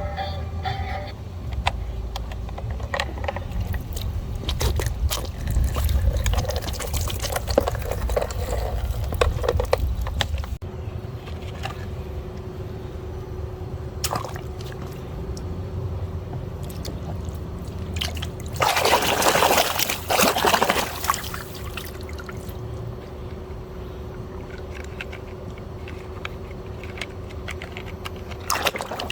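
Water pouring and splashing as muddy toy vehicles are rinsed, with a louder rush of water about two-thirds of the way through.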